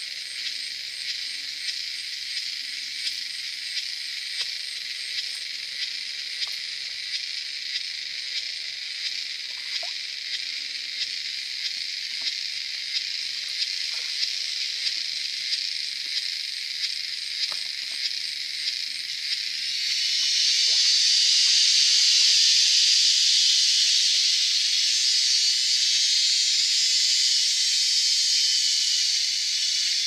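Insects in the forest buzzing steadily in a high-pitched chorus with a slight even pulse. About two-thirds of the way through, a louder, fuller buzzing chorus swells in and holds.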